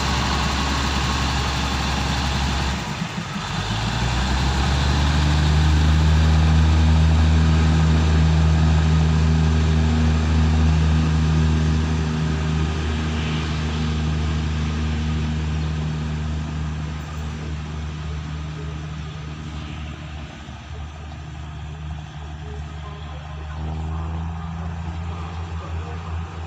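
Diesel railcar engine running steadily. Then a diesel train engine winds up in pitch to a strong steady drone that slowly fades.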